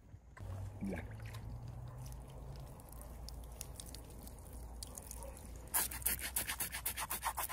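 Water trickling from a mug onto a roasted pig's charred skin while a knife scrapes the skin; from a little past halfway the scraping comes in quick strokes, about six a second, to clean off the wetted burnt crust.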